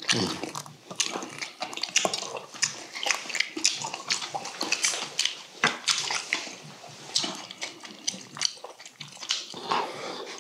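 Close-miked eating sounds of braised yellow croaker: wet chewing, sucking and lip smacking, with small irregular clicks of chopsticks.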